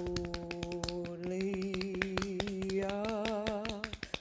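Musical interlude in a sung song: one note held with a slight waver, stepping up a little about a second in, over quick, even tapping at about seven taps a second. The note and the tapping stop shortly before the end.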